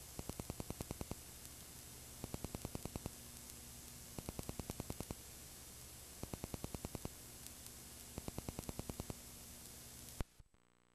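Faint hiss from a videotape player running over blank, unrecorded tape. Every two seconds comes a group of rapid clicks, about ten in a second. About ten seconds in, one sharp click marks playback stopping, and the sound drops to near silence.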